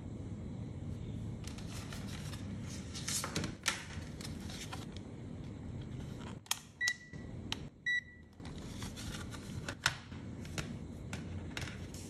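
Clicks and rubbing of hands handling a digital multimeter, with the ZOTEK VC921's rotary selector clicking round and two short beeps from the meter about a second apart, midway through.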